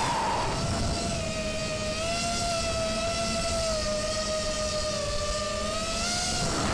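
5-inch FPV quadcopter's brushless motors whining at a steady pitch that drifts slightly up and down with throttle, over a low rushing rumble.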